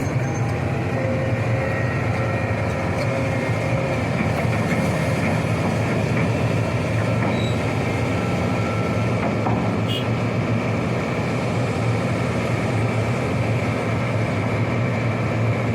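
Sany hydraulic excavator's diesel engine running steadily, with faint thin whines above the low engine sound.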